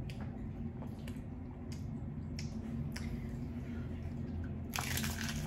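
Biting and chewing a crunchy hard-shell taco: a few scattered crisp crackles, then a dense burst of crunching near the end.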